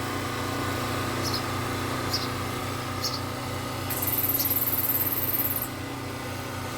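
Nestling birds giving short, high peeps, four of them spaced about a second apart, over a steady low mechanical hum. A high raspy buzz joins for about a second and a half past the middle.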